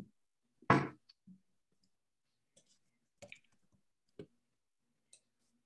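Sparse clicks of a computer keyboard and mouse heard over a video call, with one short louder burst about a second in.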